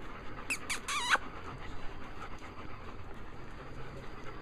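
German Shepherd dog giving three short, high-pitched whining squeaks about half a second to a second in, the last one longest and wavering.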